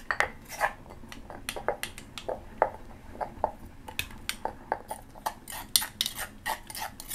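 A spoon clinking and scraping against the dish as a Thai seafood dipping sauce is stirred, with irregular clinks several times a second.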